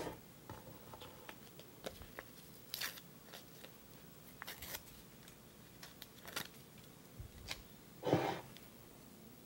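Faint handling noises: small taps and short rustles of a paper sticker label being peeled from its backing, with a louder rustle near the end.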